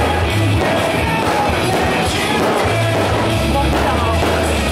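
Loud rock music with a singing voice over a heavy, pulsing bass line, played through a stadium's sound system.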